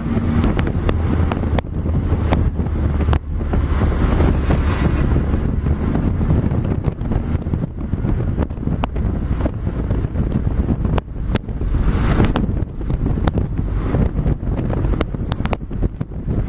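Car driving round a race circuit, heard from inside: steady engine hum and road rumble, with wind buffeting the microphone and frequent irregular clicks and knocks.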